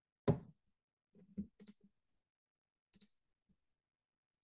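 Computer mouse clicks: one sharp click just after the start, a quick cluster of softer clicks around a second and a half, and another click near three seconds.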